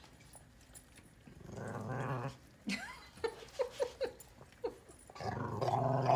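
German Shorthaired Pointer humming and grumbling: a short low moan about a second and a half in, several brief squeaky whines in the middle, then a louder, long, steady low grumble starting near the end.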